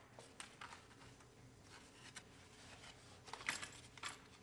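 Near silence in a small room, broken by a few faint, scattered clicks and taps.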